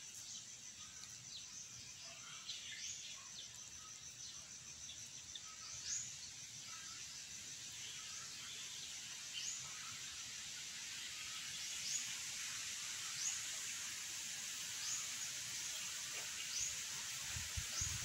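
Faint outdoor ambience: short, high, rising bird chirps repeating every second or two over a steady high hiss.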